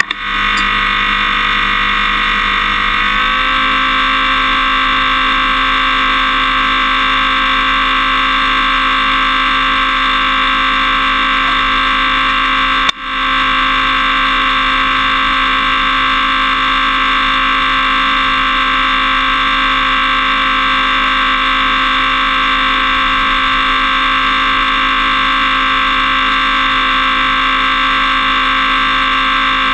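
Toyota Tundra pickup running at a steady pace, its engine and drivetrain giving a constant hum of several steady tones that step up in pitch about three seconds in. The sound drops out for a moment about thirteen seconds in.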